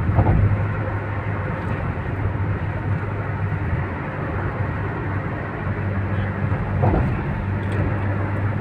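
Car cabin noise at highway speed: a steady drone of tyres and engine with a low hum, and two brief thumps, about a quarter second in and near seven seconds, as the tyres roll over road joints.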